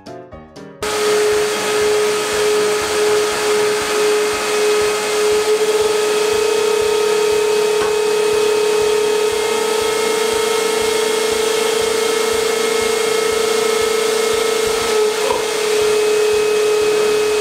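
Two wet/dry vacuum cleaners running steadily, drawing suction through hoses to a pair of homemade vacuum-shoe plates on the ceiling, with a steady motor whine over rushing air. The noise starts about a second in, the whine rises slightly in pitch about five seconds in, and the seal on one suction plate is damaged.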